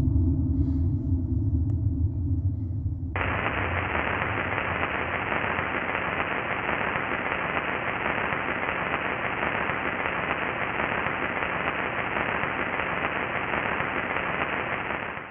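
A low electronic drone for about three seconds, then a sudden switch to steady static hiss, the white noise of a video glitch effect, which cuts off abruptly near the end.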